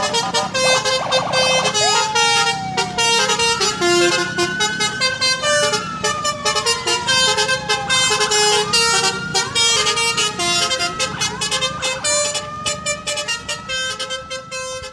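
Upbeat background music with a steady beat and a pitched melody, mixed with horn-like honks and sliding, siren-like tones that rise and fall. It fades out near the end.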